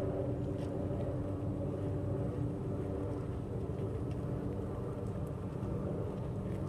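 A vehicle engine running steadily: a low rumble with a steady droning hum, the hum fading somewhat after the first couple of seconds.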